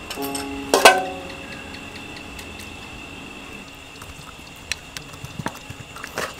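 A kitchen knife cuts chunks from a peeled green vegetable held in the hand, making a scatter of small soft clicks toward the end. A steady high-pitched tone runs underneath. A brief louder pitched sound comes about a second in.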